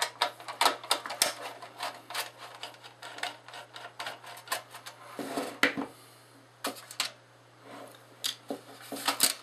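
Irregular light clicks and scrapes of a screwdriver backing a screw out of a halogen flood light's sheet-metal reflector, with a few louder knocks as the metal housing is shifted and handled.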